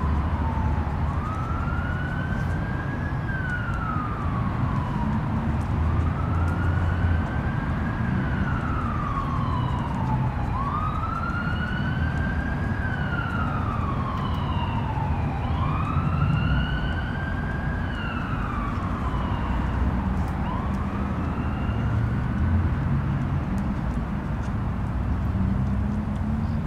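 Emergency-vehicle siren wailing: five slow rises and falls in pitch, each lasting about four seconds, fading out near the end, over a steady low rumble.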